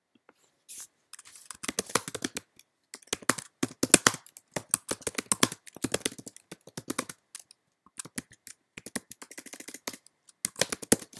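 Typing on a computer keyboard: quick runs of clicking keystrokes with short pauses between them.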